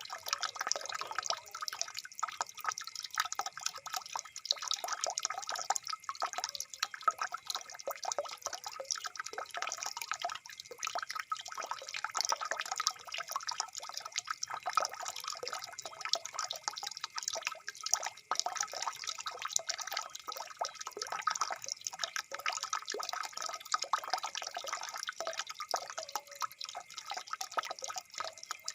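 Water flowing in a rice field: a continuous, rapid patter of trickling and dripping without a break.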